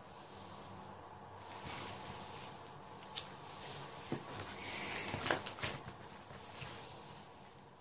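Plastic sleeve pages of a ring binder rustling as they are turned, two soft swishes about two and five seconds in, with a few light clicks and taps of the pages.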